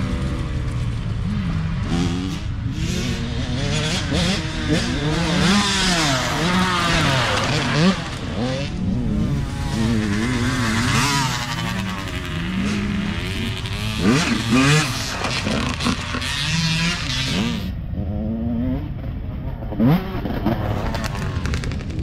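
Dirt bike engines revving, their pitch climbing and dropping again and again as riders accelerate and shift through the gears, with several bikes passing in turn.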